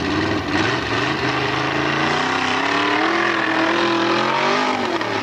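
Formula Offroad buggy's engine revving hard as the car climbs a steep dirt hill, its pitch rising steadily through the middle and bending down near the end.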